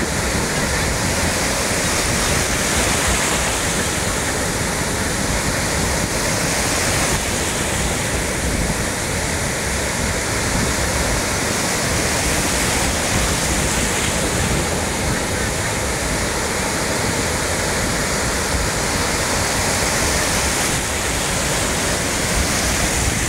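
Surf breaking and washing through shallow water close by: a steady, loud rush of white water that swells and eases slowly.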